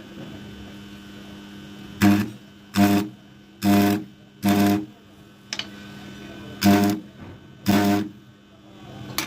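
Welding machine buzzing in six short bursts, each a fraction of a second long, as studs are welded onto a turbocharger, over a steady electrical hum.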